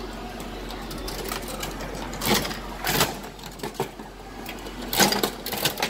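Capsule-toy (gacha) vending machine being cranked: a run of ratcheting mechanical clicking, with louder clacks about two, three and five seconds in.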